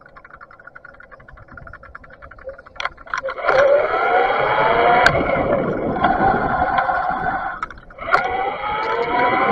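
Bafang BBS mid-drive e-bike motor whining and rising in pitch as it accelerates, with wind and road noise. It cuts out briefly near the end and then picks up again. Before it starts there are a few seconds of rapid light ticking from the rear freewheel while coasting.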